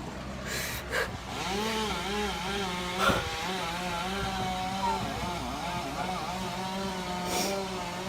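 Chainsaw running, its engine note repeatedly dipping and rising again in waves as it is worked, with a few sharp knocks in the first few seconds.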